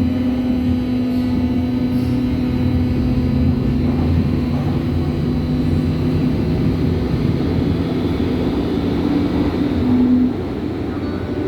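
Berlin U-Bahn H01 train running: a steady rumble with the traction motors' hum. About ten seconds in, the main hum tone stops and the sound gets slightly quieter.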